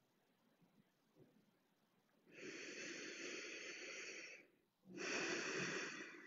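A person's slow, audible breathing: after a couple of seconds of near silence, one long breath of about two seconds, then a second, shorter breath about half a second later.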